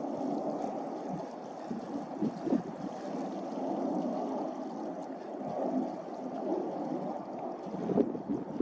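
Gusty wind buffeting the microphone: a rushing noise that swells and dips unevenly, with a few sharp knocks near the end.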